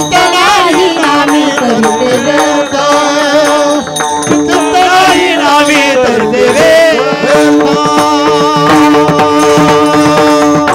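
Devotional kirtan music: a sung melody over steady held notes of a harmonium, with tabla-type drum strokes and small hand cymbals beating time.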